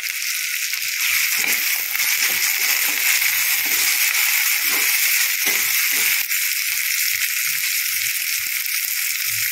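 Green peas, onion, tomato and green chilli sizzling steadily in oil in a non-stick kadhai while a spatula stirs them. The sizzle grows a little louder about a second in.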